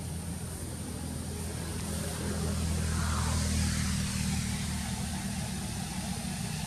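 A low, steady engine rumble, like a vehicle idling, that swells a little in the middle, with a faint steady high drone above it.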